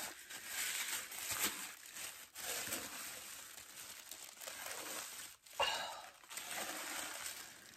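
Packaging crinkling and rustling as a candle is unwrapped by hand, irregular handling noise with short pauses.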